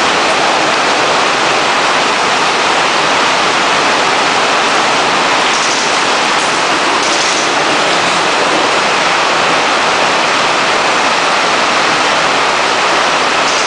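Heavy rain falling, a loud, steady hiss with no let-up.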